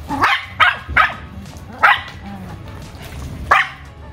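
Rottweiler barking five times, irregularly spaced, in short sharp barks while excited by the flirt-pole lure.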